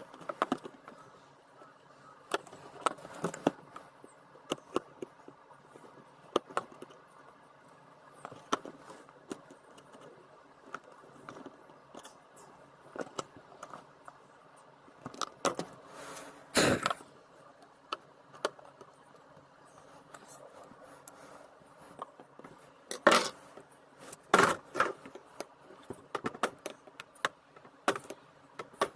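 Hand tools working metal staples out of an old window scraper seal on a car door: irregular scraping and sharp metallic clicks and taps, with a few louder strikes.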